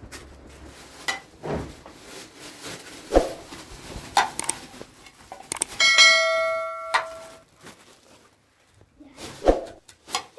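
Scattered knocks and clatter, then one metallic strike about six seconds in that rings like a bell for about a second before fading.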